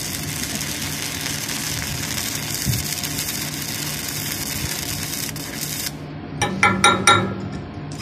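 Stick-welding arc on a steel anchor chain link, a steady frying crackle that cuts off abruptly about six seconds in as the arc is broken. A few sharp metallic clinks follow near the end.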